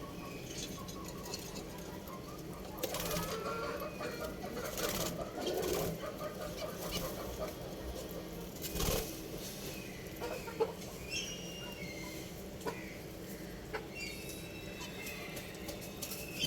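Budgerigars chirping in short, scattered calls, with a few brief bouts of wing flapping and occasional small clicks.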